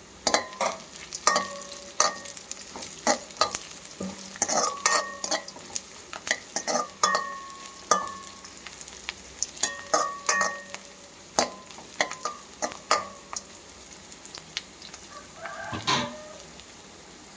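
A spoon stirring diced onions, dal and green chillies frying in oil in a metal kadai: repeated sharp clinks and scrapes against the pan, some ringing briefly, over a light sizzle.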